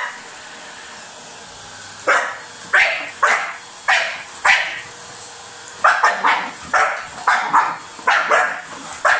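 A dog barking repeatedly at a vacuum cleaner head, starting about two seconds in with single barks, then quicker, closer-spaced barks in the second half. Under the barks is the vacuum cleaner's steady motor hum with a thin whine.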